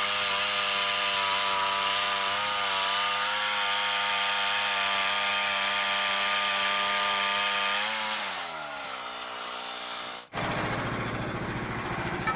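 Portable sawmill's small gasoline engine, just warmed up, running at high speed with a steady pitch, then throttled down about eight seconds in, its pitch falling and settling lower. After a sudden break near the end it runs at a low, uneven idle.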